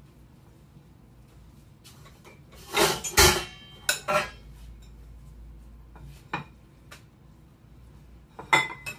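A spoon clinking and scraping in a ceramic mixing bowl as chicken salad is stirred, in scattered strikes. A loud clatter of dishes comes about three seconds in.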